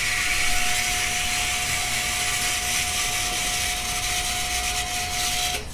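Water supply pump motor running with a steady hum and hiss, cutting off suddenly near the end as the supply is switched off.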